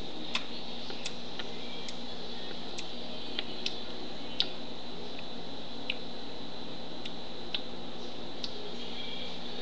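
Scattered faint clicks and taps of small plastic pet figurines being handled, knocking against each other and the wooden surface, over a steady background hiss with a faint high whine.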